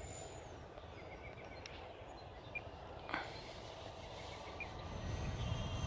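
Outdoor ambience: faint bird chirps over a low steady rumble, with a single sharp click about three seconds in.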